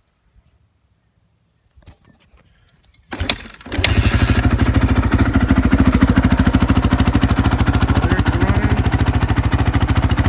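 A 2015 Honda CRF450's single-cylinder four-stroke engine starts a few seconds in and settles into a steady, evenly pulsing idle without being revved.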